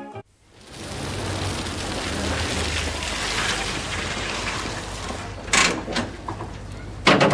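A van's engine running steadily under street noise, with a sharp clatter about five and a half seconds in and another near the end.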